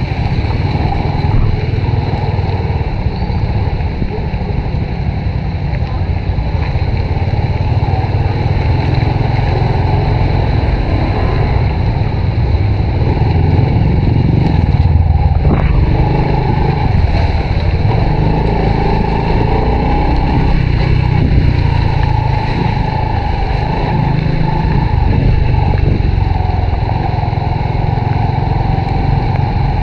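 Honda RSX 110 underbone motorcycle's 110 cc single-cylinder engine running while riding, its pitch rising and falling with the throttle over a steady heavy low rumble.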